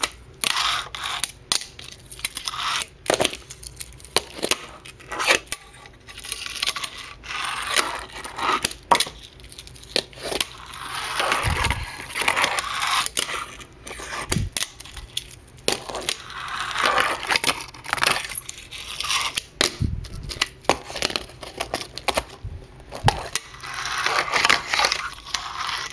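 Fingerboard riding on wooden ramps and ledges: many sharp clicks and clacks from pops and landings, between stretches of wheels rolling and the board scraping along ledge edges.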